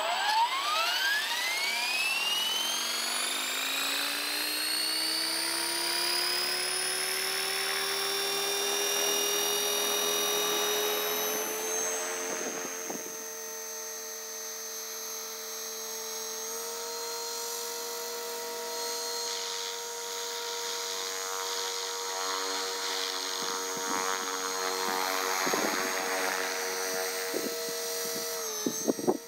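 Blade 450 electric radio-controlled helicopter spooling up: the motor, gear and rotor whine rises steeply in pitch over the first few seconds, then levels off into a steady high whine as it flies, with small shifts in pitch. A few brief crackles near the end.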